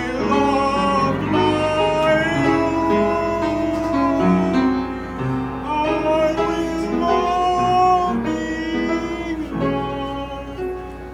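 A man singing solo at a microphone over instrumental accompaniment, holding long sustained notes with a slight vibrato.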